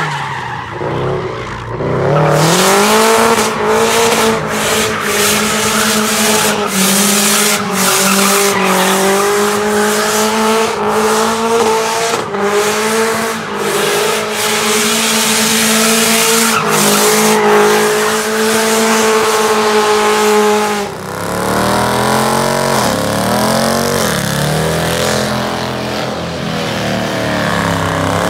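A car doing donuts: the engine is held at high, steady revs while the tyres squeal as they spin, raising tyre smoke. About three-quarters of the way through, the revs drop, then swell up and down again.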